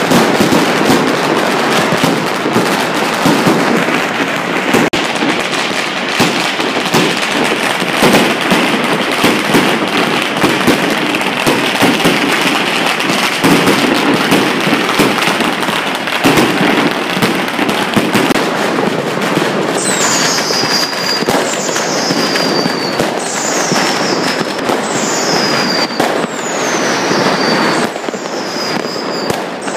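Dense, unbroken crackle of firecracker strings going off, with aerial fireworks bursting among them. From about two-thirds of the way in, a high whistle that falls in pitch repeats about once a second over the crackle.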